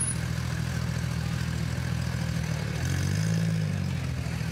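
Car engine idling steadily, with a short rev about three seconds in before it settles back to idle.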